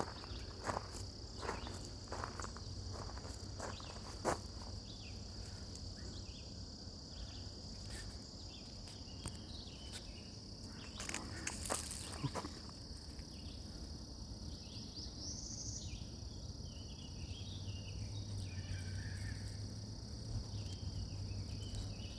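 A steady high-pitched chorus of summer insects buzzing without a break, with footsteps on the trail in the first few seconds and a brief louder rustle about halfway through. A few short bird calls come in near the end.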